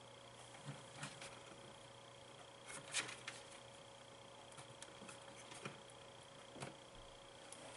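A few faint clicks and taps of a plastic multi-pin connector being handled and pressed onto the header pins of a pinball MPU board, the loudest about three seconds in, over a faint steady electrical hum.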